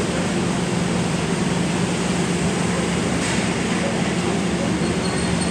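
Kertanegara passenger train running: a steady rumble of wheels on rails with a constant low hum underneath.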